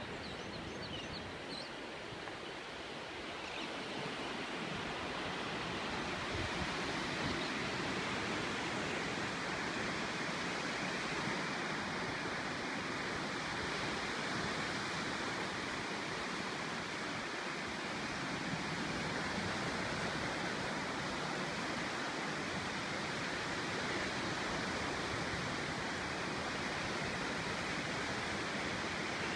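Ocean surf breaking on a beach, heard as a steady, even rushing noise. It grows louder over the first few seconds and then holds.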